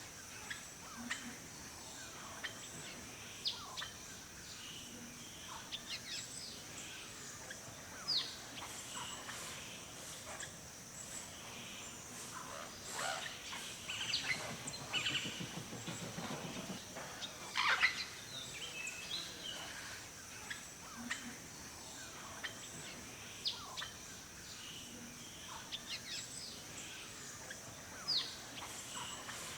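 Wild forest birds chirping and calling, short calls scattered throughout and busiest around the middle, over a steady high hiss.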